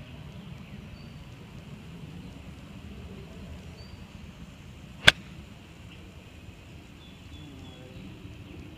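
A single sharp click of a 58-degree wedge striking a golf ball out of the rough, about five seconds in.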